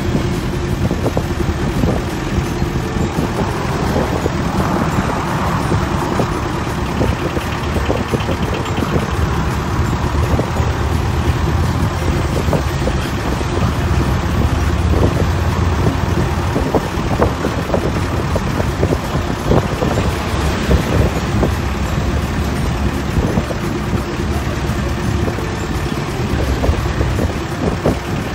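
Jeepney in motion: the engine runs steadily under road noise, with frequent short rattles of the body and wind buffeting the microphone.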